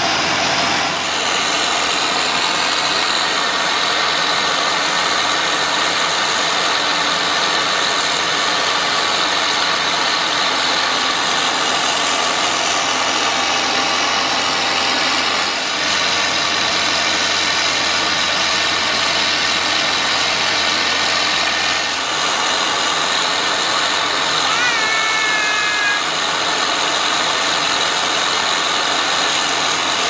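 Case IH 2166 combine running close by: a loud, steady mechanical noise that does not change.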